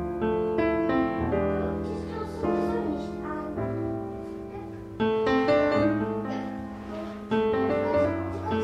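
Background piano music: chords struck and left to ring and fade, over a low bass line.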